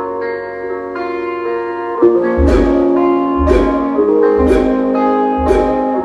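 Music played loud through a car sound system with a 12-inch Tiger Audio 1300 W RMS subwoofer: a plucked-string melody, then about two seconds in a beat comes in, with deep bass hits and sharp drum strikes about once a second.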